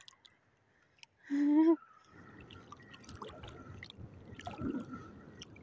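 Shallow seawater splashing and trickling around a hand as a small grouper is let go back into the sea, with scattered small ticks. About a second and a half in, a person gives a short hum.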